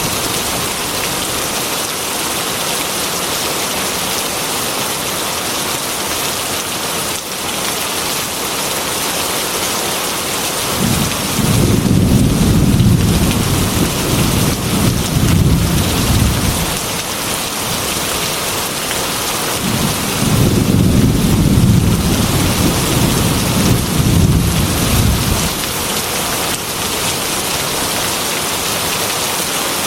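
Heavy rain falling steadily, with two long rolls of low thunder, one about a third of the way in and another past the middle.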